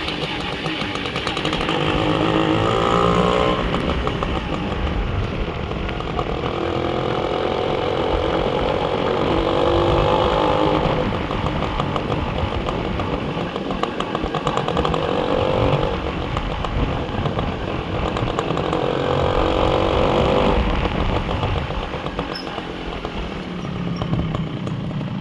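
Motorcycle engine running under way, its pitch rising several times and dropping as it shifts up through the gears, over a steady rumble of road and wind noise.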